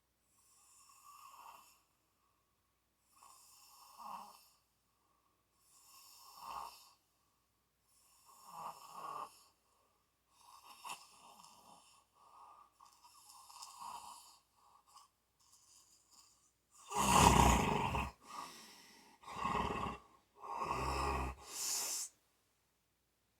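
Someone snoring in sleep, a breath about every two and a half seconds. The last few snores, from about three-quarters of the way in, are much louder and deeper.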